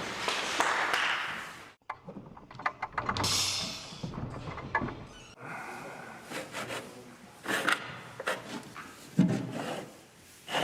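A run of scattered clicks and knocks with a brief hiss about three seconds in, after a denser noisy sound that cuts off sharply near the start.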